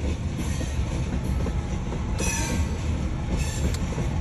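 Freight train cars, mostly hoppers, rolling past with a steady low rumble and clatter of steel wheels on rail. A brief high wheel squeal comes about two seconds in.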